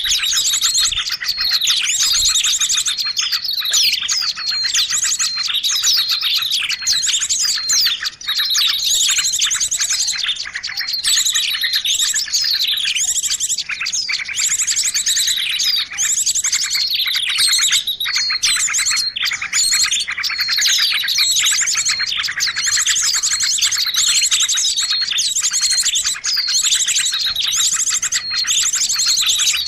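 Dense, unbroken chorus of small songbirds chirping and trilling, many calls overlapping at once: a bird-lure recording made to draw in small birds.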